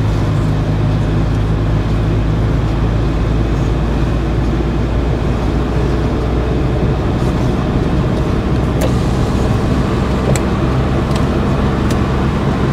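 Renault Clio engine running steadily with tyre and road noise, heard from inside the cabin while driving, with a few faint clicks about nine and ten seconds in.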